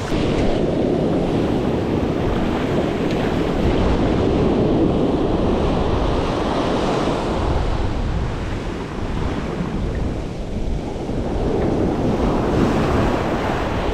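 Ocean surf breaking and washing on the beach, with wind rushing over the microphone.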